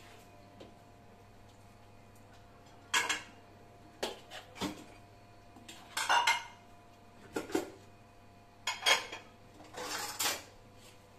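Cutlery clinking and scraping against dishes, about a dozen short strokes in irregular clusters, as a meal begins.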